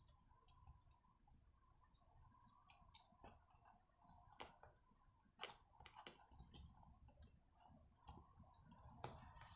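Faint, irregular clicks and taps of a hard plastic brush cutter throttle handle and its wires being handled and pressed into place by hand.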